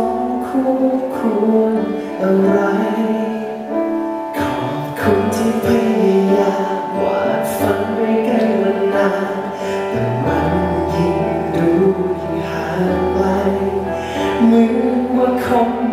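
A man singing a Thai pop song live into a handheld microphone over band accompaniment through a concert sound system; a low bass comes in about ten seconds in.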